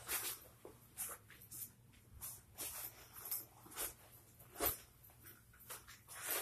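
Irregular short rustles and swishes of a black hooded coat's fabric as it is pulled on and adjusted.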